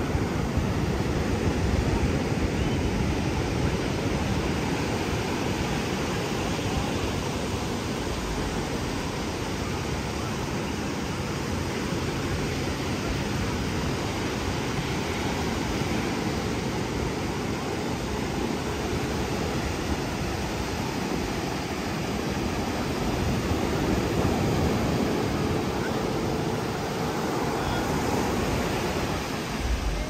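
Steady rushing noise of surf and wind, with no distinct events.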